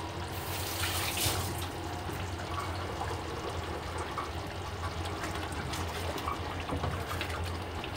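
Thick butter chicken gravy simmering in a wok, its bubbles popping in small ticks over a steady low hum, with a wooden spoon stirring through it near the end.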